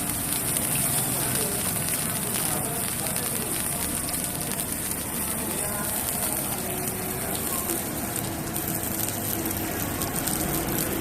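Steady hiss and sizzle of fried rice cooking in a wok over a burner, with a few faint light knocks and quiet voices in the background.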